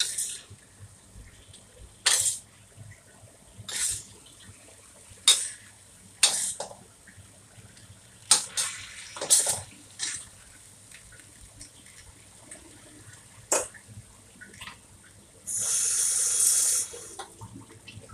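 A spatula scraping and stirring in a steel wok of frying eggplant and minced pork. Short scrapes come every second or two, and a longer hiss lasting over a second comes near the end.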